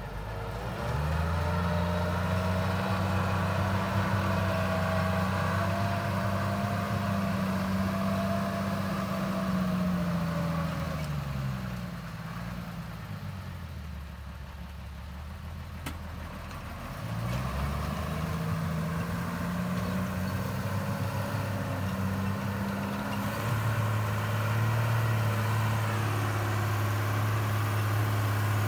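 Tata 1612 4x4 truck's diesel engine working under load as the truck wades through a river. It revs up about a second in and holds there, drops back to a low idle for several seconds midway, then revs up again and climbs once more near the end.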